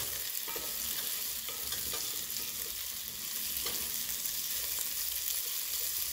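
Diced carrots, potatoes and beans sizzling in hot oil in a coated frying pan while a wooden spatula stirs them, scraping over the pan a few times.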